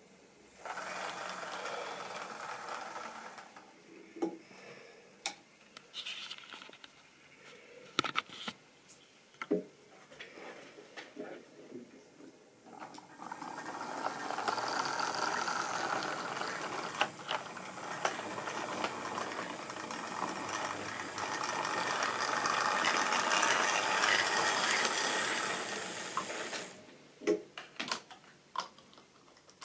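Model railway train with its rolling stock running along the track: a steady clattering run with many fine ticks, heard briefly near the start and then for about thirteen seconds from about a third of the way in. Scattered single clicks and knocks come in between and near the end.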